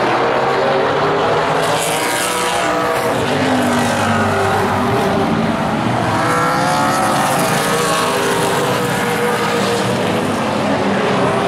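A pack of Late Model stock cars' V8 engines running at race speed, the engine notes swelling and fading as the cars pass. The pitch climbs as the cars accelerate, about two seconds in and again around seven seconds in.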